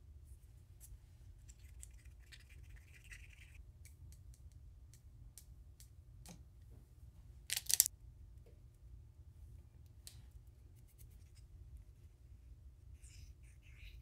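Wooden stir stick faintly scraping and tapping in a small plastic cup as mica powder and glitter are mixed into liquid silicone rubber, with scattered small clicks and one sharper crackle about seven and a half seconds in. A low steady hum runs underneath.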